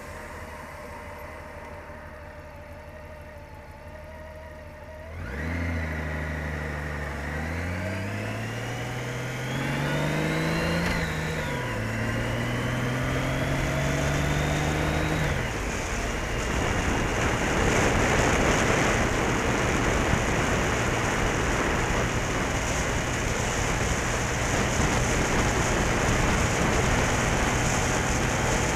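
Motorcycle engine idling quietly, then pulling away about five seconds in: the engine note climbs, drops at a gear change, climbs again and drops at a second shift. It then settles into a steady cruise under heavy wind rush on the bike-mounted camera's microphone.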